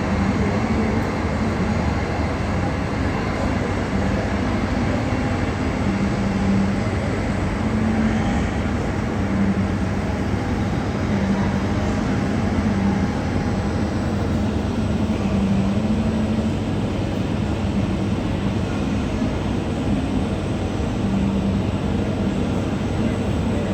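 Jet airliner engines running steadily, a continuous loud rush with a low hum that swells slightly every few seconds.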